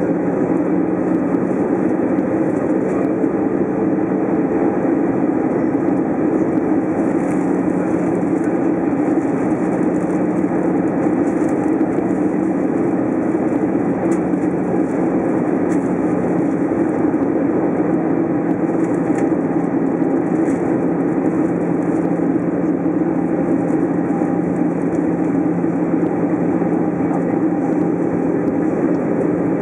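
Steady cabin noise inside an Airbus A320 airliner on approach: engine and airflow rushing with a constant low hum.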